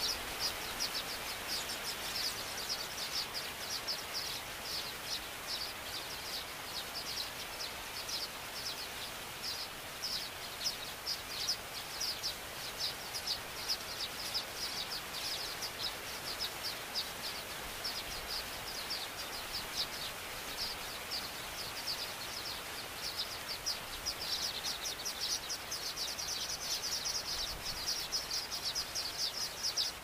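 Baya weavers chattering: a fast, unbroken run of short high chirps that thickens into a denser chatter about three quarters of the way through, over a steady outdoor hiss.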